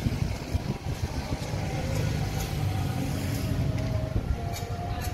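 Motorbike engine running, a steady low rumble with a faint whine over it.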